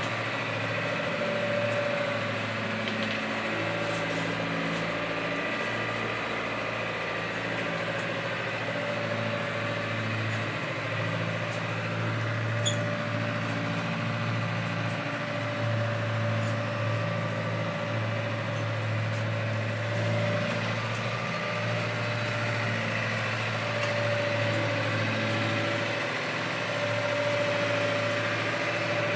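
A boat engine running steadily, heard inside a sailboat's cabin as an even, low hum that does not change.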